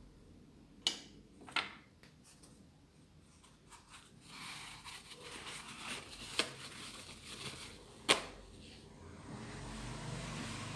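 Handling noise: four sharp clicks, two close together near the start and two more later, with light rustling and scraping in between.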